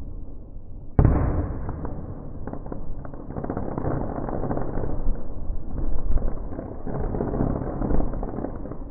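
Aerial fireworks bursting: a sharp boom about a second in, then a long, deep rumble full of crackling and repeated loud pops.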